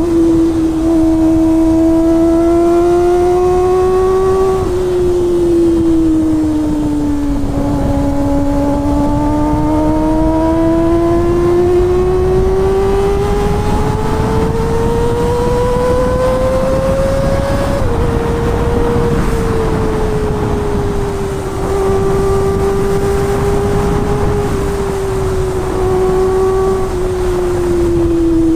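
Kawasaki ZX-25R's 250 cc inline-four engine running at high revs while riding. Its pitch climbs slowly and eases off, and it drops abruptly twice, a little after four seconds and again near eighteen seconds, as at gear changes.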